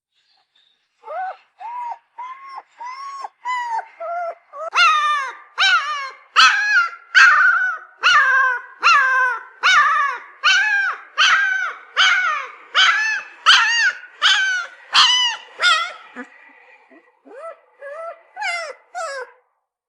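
Puppy crying: a long run of short, high whimpering cries, about two a second, each rising and then falling in pitch. They grow louder a few seconds in, break off briefly, and a few fainter cries follow near the end.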